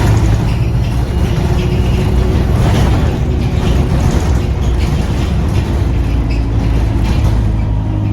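Single-deck diesel service bus heard from on board while driving: a steady low engine and drivetrain drone, with body rattles and road noise through the cabin.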